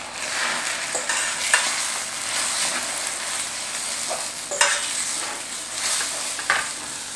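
Scrambled eggs sizzling in hot oil in a stainless steel pan while a fork stirs them, with several short scrapes of the metal fork against the pan.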